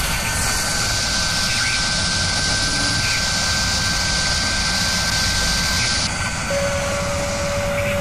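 Sound-effect whir of a spinning machine spindle: a steady rushing noise with a high held tone that stops about six seconds in, then a lower held tone near the end.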